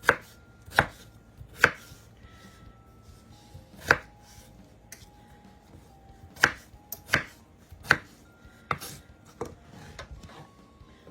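Kitchen knife chopping raw potatoes into chunks on a cutting board: about nine sharp knocks of the blade on the board at uneven intervals.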